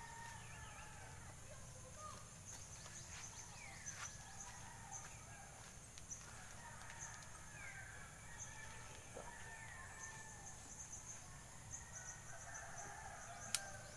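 Faint backyard birdsong: chickens and small birds calling now and then, with high chirping throughout and one sharp click near the end.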